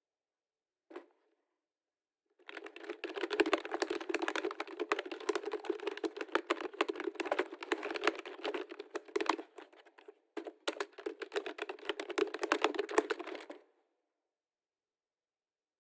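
Computer keyboard being typed on in fast, dense runs of key clicks. There is a single key tap about a second in, then steady typing that breaks off briefly about two-thirds of the way through, resumes, and stops near the end.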